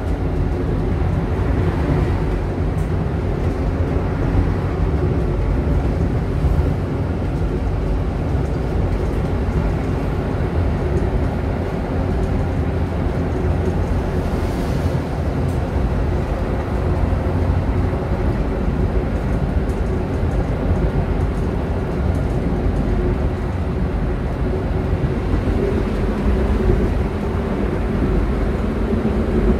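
Konstal 805Na tram running along the track, heard from inside the passenger car: a steady low rumble with a few held humming tones.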